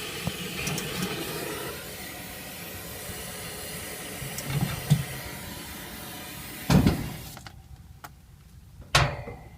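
Steady hissing noise that cuts off abruptly about seven seconds in, with a knock just before the cut-off and another near the end.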